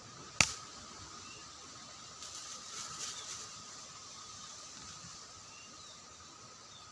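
A single sharp gunshot at a bird, about half a second in, followed a couple of seconds later by a brief rustle.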